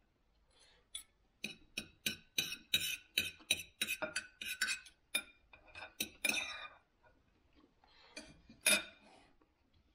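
Knife and fork clinking and scraping against a dinner plate while cutting food: a quick run of clicks for about five seconds, then quieter, with one louder clink near the end.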